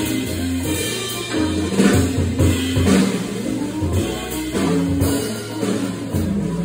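Jazz trio of electric guitar, organ and drum kit playing live, with the drum kit prominent: steady drum and cymbal strokes over held low organ notes.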